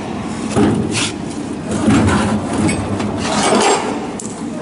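Sheets of paper rustling as a stack of notes is leafed through by hand: several short rustles over a steady background.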